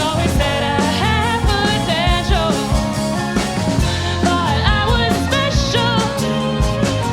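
Live rock band playing: drums, bass and guitar under a melody line, with wavering pitched notes that may be singing or viola.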